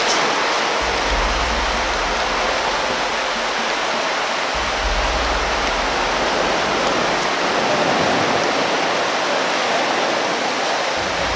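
A steady, even rushing noise, with low rumbles coming and going.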